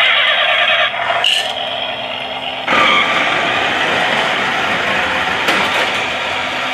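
Battery-operated Road Rippers toy Chevrolet Camaro playing its electronic engine-revving and racing sound effects through its built-in speaker, set off by a press of the roof button. A new, louder sound effect starts about two and a half seconds in as the car drives itself across the floor.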